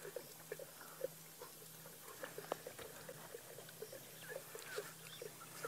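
Male lions lapping water, a quick soft run of laps, about three a second.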